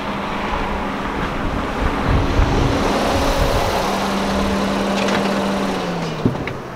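A car's engine running as the car rolls up slowly and comes to a stop, its note dropping a little near the end, with a sharp click just before it stops.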